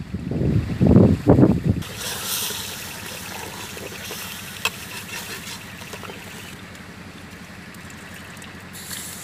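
Wind gusts rumbling on the microphone for the first two seconds. Then a steady hiss from the pot of simmering tomato water over the wood fire as soaked rice is tipped in by hand, with one sharp click about halfway through.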